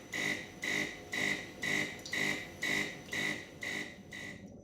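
A De'Longhi ESAM bean-to-cup coffee machine's pump buzzing in short, even pulses, about two a second, as it pushes hot water through during a manual rinse cycle. It stops shortly before the end.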